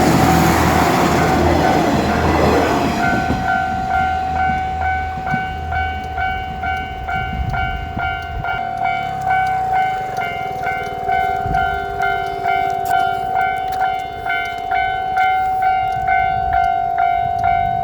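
Japanese railroad crossing alarm ringing steadily, about two strikes a second, while a diesel train rumbles through and away, its engine and wheel noise fading over the first several seconds.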